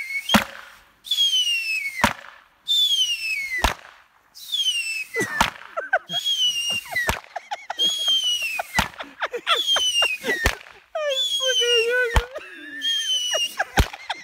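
A budget fireworks display: about nine falling whistles in a row, each ending in a sharp bang, roughly one every second and a half.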